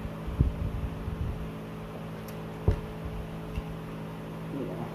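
A steady low hum runs throughout. Over it come a few soft low knocks in the first second and a half, and one sharper knock about two and a half seconds in.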